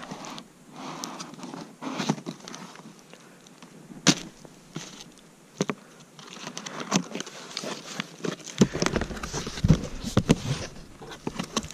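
Scissors cutting through packing tape along a cardboard box seam, with irregular sharp clicks and scrapes of the blades on the cardboard. In the last few seconds the cardboard flaps are handled and pulled open, with fuller rustling and knocks.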